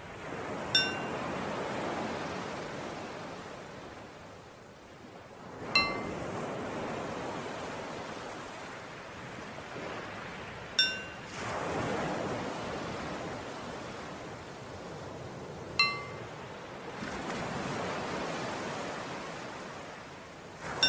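Ocean waves washing in slow swells, with a small bell struck once every five seconds, alternating between two pitches, each strike the cue to breathe in or breathe out in paced coherence breathing.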